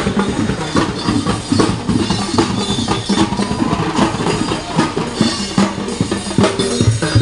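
A parade drum band playing a fast, steady beat on bass drum and snare drums.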